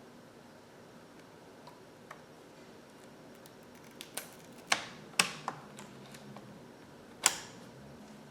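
A few sharp clicks and taps as a laptop RAM module is pushed into its slot and snapped down under the retaining clips. The clicks come in a scattered group in the second half, the loudest one near the end.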